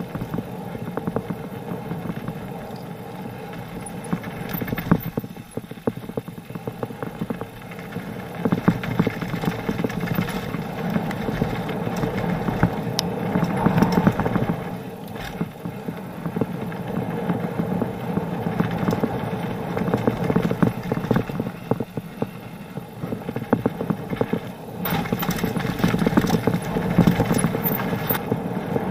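Mountain bike rattling and clattering down a dirt and gravel trail, with dense, irregular knocks from the frame and parts over the tyres rolling on the loose surface.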